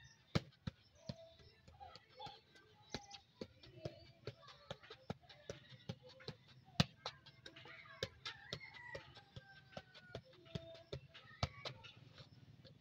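A football being juggled: a quick run of sharp ball touches, about two or three a second, unevenly spaced.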